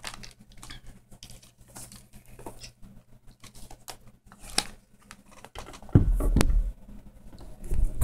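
Light handling noises: scattered small clicks, taps and rustles as a multimeter and its test leads are set up. About six seconds in, a heavy low bump of the camera being handled, then a sharp click near the end.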